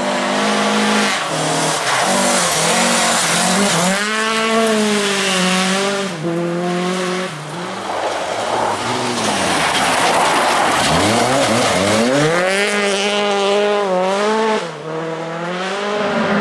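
Rally car engine revving hard on a gravel stage, its pitch climbing and dropping through the gears as the car slides past, with loose gravel spraying and tyres scrabbling. The engine climbs strongly twice, about a third of the way in and again near the end.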